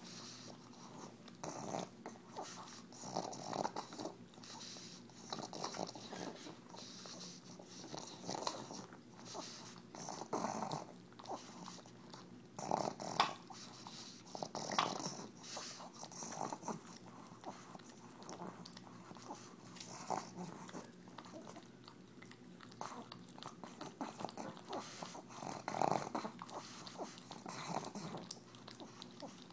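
A pug snorting and slurping in irregular bursts as it licks and chews spray cheese out of a rubber KONG toy, its short snout pressed into the toy's opening.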